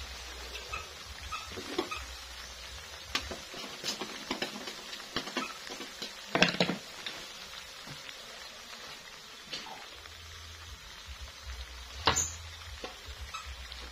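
Rempeyek (peanut batter cracker) frying in hot oil in a wok: steady sizzling with scattered crackles and pops, a loud burst of popping about halfway through and one sharp pop near the end.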